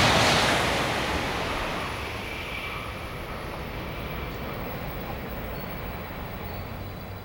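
N700-series Shinkansen train passing at high speed, its rushing noise fading away over the first two seconds and leaving a low, steady background.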